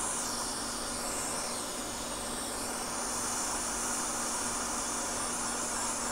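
Hot air rework gun blowing steadily, an even airy hiss with a faint hum under it, as it heats the solder joints to lift a power connector off a circuit board.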